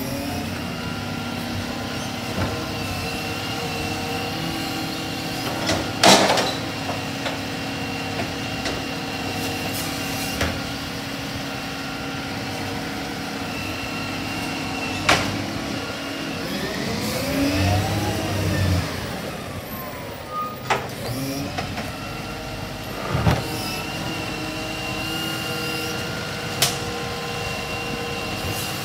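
Side-loading garbage truck's engine running while its hydraulic lift arm whines as it grabs, raises and empties wheelie bins. Several sharp clunks of bins striking metal, the loudest about six seconds in.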